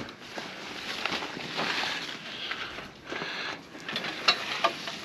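Heavy awning canvas rustling as it is pulled by hand out of its roof-rack cover, with a few sharp knocks in the second half.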